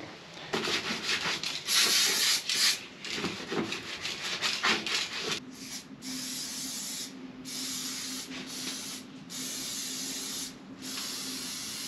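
Several seconds of rubbing and wiping, then an aerosol spray can hissing in a run of bursts of about a second each, with short gaps between them, as cleaner and rust treatment are sprayed onto bare, sanded spots on the van's sheet-metal floor.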